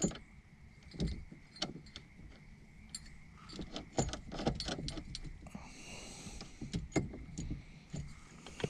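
Irregular clicks, clinks and knocks of metal parts being handled as a Momo steering wheel and hub adapter are set loosely onto the steering column, with a short rustle about six seconds in.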